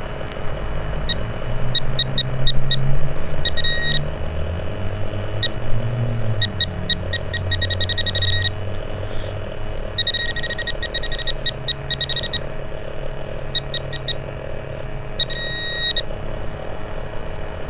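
Handheld pinpointer probe beeping as it is pushed through dug soil, in bursts of rapid high beeps that signal metal close by. A low rumble runs beneath the beeps for about the first half.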